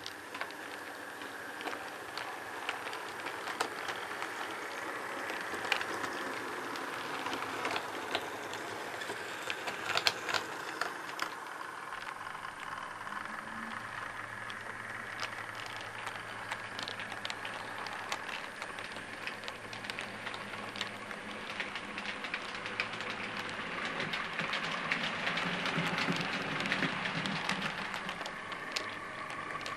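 OO gauge model trains running on the track: wheels clicking and rattling over the rails, with a low steady hum of a small electric motor through the second half, growing somewhat louder near the end.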